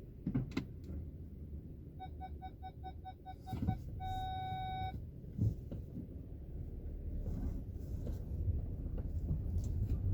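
Front suspension of a facelifted Skoda Octavia A7 creaking and knocking in short bursts over a low cabin rumble, the squeak-and-fart noise of a suspension fault. About two seconds in, a parking-sensor beep sounds about four times a second, then turns into one steady tone for about a second.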